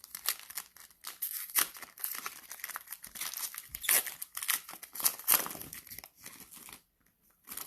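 Cellophane wrapper of a trading-card cello pack being torn open and crinkled, a dense crackling that dies away near the end.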